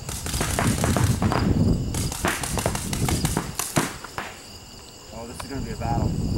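Paintball markers firing in rapid strings of sharp pops. The shots come thickly for about four seconds, then thin out into a quieter stretch.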